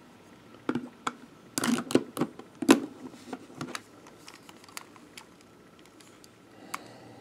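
Hard plastic clicking and knocking as a ranger action figure is handled and seated on a plastic toy horse. A flurry of clicks and knocks comes in the first few seconds, then a few scattered ticks.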